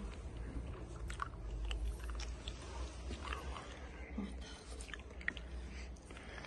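Faint rustling and scattered light clicks as a person lifts a cat and holds it against a jacket, over a low steady hum.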